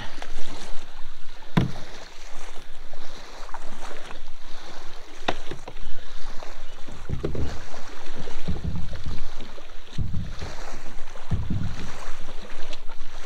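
Shallow river water sloshing and splashing around a plastic sit-on-top kayak and wading bare feet. A couple of sharp knocks come about one and a half and five seconds in, and there are some dull low bumps later.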